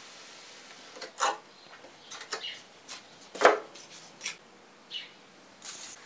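Polystyrene foam handled against the hot-wire cutter, making a series of short scraping rubs, the loudest a little past halfway.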